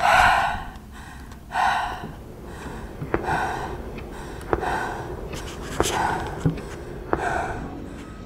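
A person breathing heavily, one loud breath about every second and a half. From about three seconds in, a sharp tap comes just before each breath.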